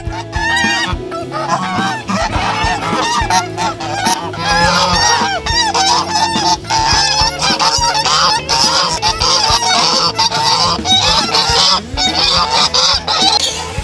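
A flock of domestic geese honking over and over, with many calls overlapping.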